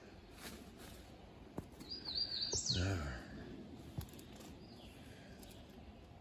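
A bird calling about two seconds in: a wavering high whistle that ends in a quick falling note. A man's brief low voiced sound overlaps its end, over faint outdoor background with a few small clicks.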